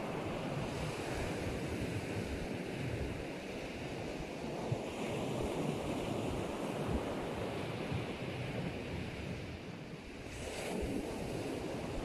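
Sea waves washing onto a sandy beach, with wind rumbling on the microphone.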